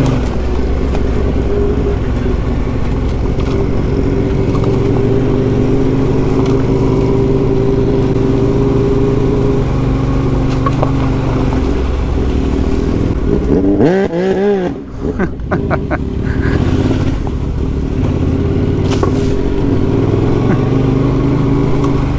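Motorcycle engine running steadily under way on a dirt track, with a quick rev that rises and falls about two-thirds of the way through before it settles back to steady running.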